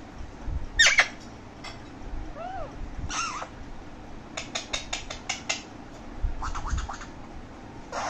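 Alexandrine parakeet making a string of short squawks and calls: a loud squawk about a second in, a few short arching whistled calls, then a quick run of clicking chirps around the middle and again near the end.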